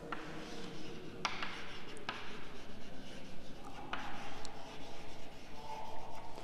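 Chalk writing on a chalkboard: a run of short scratching strokes with a few sharp taps as the chalk strikes the board.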